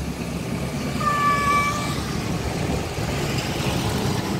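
A cat gives one drawn-out meow of under a second, held at a level pitch, about a second in, over a steady low background rumble.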